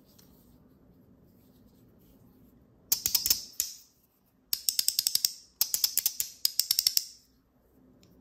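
Metal card-shaped fidget slider (Lautie Shuffle v3) being worked back and forth in the fingers, giving three quick runs of sharp, crisp clicks a few seconds apart.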